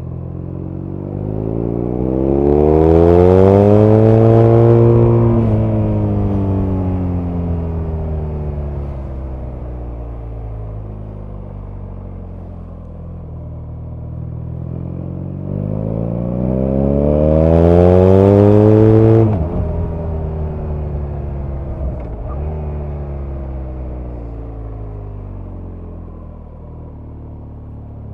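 BMW R nineT's air/oil-cooled boxer twin accelerating hard twice, its pitch climbing for a few seconds each time. Then the throttle closes and the engine note sinks away slowly on the overrun, cutting off sharply after the second pull.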